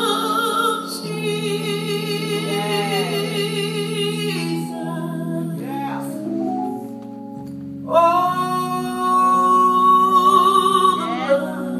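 Live gospel worship song: a solo singer's amplified voice holds long notes with vibrato over sustained low chords from an accompanying instrument. The singing dips briefly about seven seconds in, then another long note is held.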